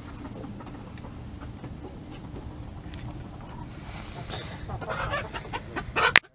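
Holland chickens clucking, with a sharp knock just before the end.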